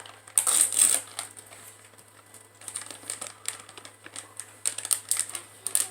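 Plastic candy package crinkling as it is handled, a louder burst of crinkles in the first second and more scattered crackles near the end.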